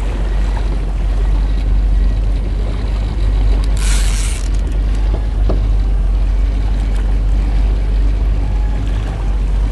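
Fishing boat's engine running steadily with a low rumble, with wind and water noise over it; a short hiss about four seconds in.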